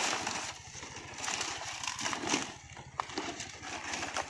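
Rustling, crackling and tearing of dry palmyra palm leaf sheaths and fibre as the white palm heart is worked loose by hand, with a few sharp knocks scattered through it.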